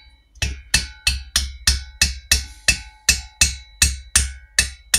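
Steady, light hammer taps driving a rocker spindle into a Norton Commando cylinder head, about three a second, each tap ringing briefly. The spindle, chilled to slide into the heated head, is going in quite easily.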